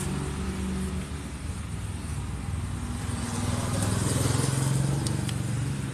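A vehicle engine running steadily with a low hum, and a couple of faint clicks about five seconds in.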